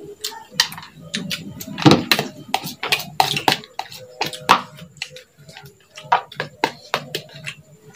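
Close-up eating sounds: chewing, wet mouth smacks and lip clicks in an irregular run, with a light knock or two from a plastic bowl being handled.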